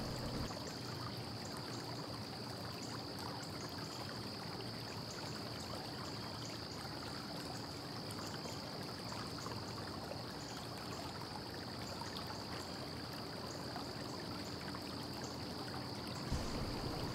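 Steady background hiss with a faint low hum and a thin high whine; no distinct knocks or clanks of the panels stand out.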